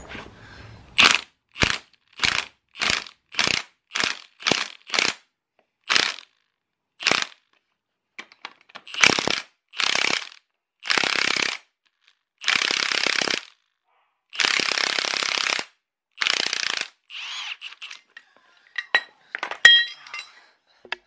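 Impact wrench driving the screw of a Pitman arm puller: a run of short blips, then several longer bursts of hammering. Near the end comes one sharp crack, the Pitman arm breaking loose from the steering box shaft.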